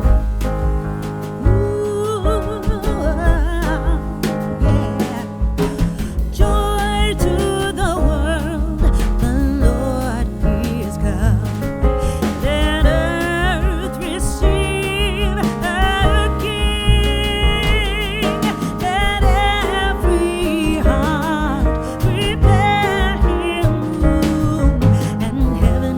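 Background music: a song with a singing voice over a steady bass beat and instruments.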